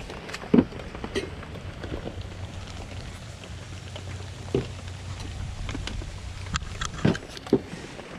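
Steady rain falling, with scattered sharp knocks and taps over it, the loudest about half a second in and twice near the end.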